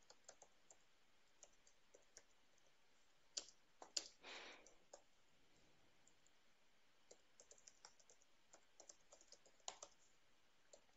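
Faint computer keyboard typing: single keystrokes in irregular short runs, with pauses between them.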